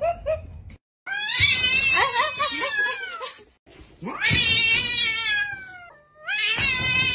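A domestic cat yowling: three long, drawn-out calls that waver in pitch, the last one shorter and rising at its start.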